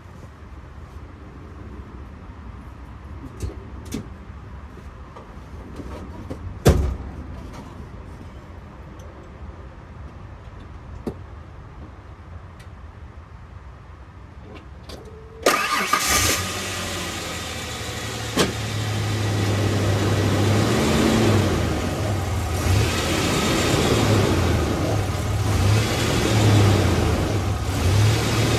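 A few light clicks and one sharp knock, then about halfway through a Ford Explorer's engine starts suddenly and keeps running with a steady low note.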